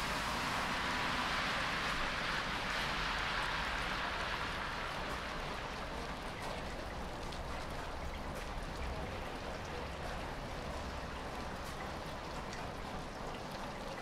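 Light rain falling outdoors: a steady hiss with many fine, separate drop ticks. A fuller, louder wash in the first few seconds eases off into a lighter patter.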